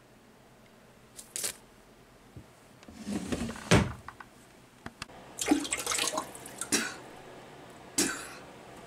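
A run of short, irregular knocks and bumps, the loudest about four seconds in, with a cluster of them in the second half.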